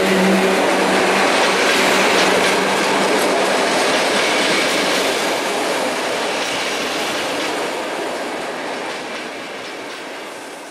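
PKP Intercity passenger coaches rolling past on the rails, wheels clicking over joints and switches, with a low hum that stops about a second in. The rolling noise fades steadily as the last coaches move away.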